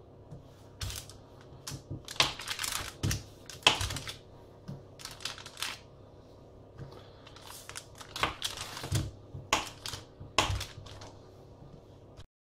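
Irregular taps, knocks and papery crinkles of hands handling butter and its wrapper, with soft thumps as pieces drop into the Thermomix bowl.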